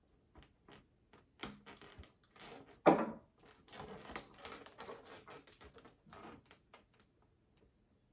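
Scattered small clicks, taps and rustling of craft materials being handled, with one sharp knock about three seconds in.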